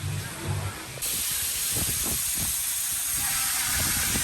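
Steady hiss of rushing, spraying water that starts suddenly about a second in.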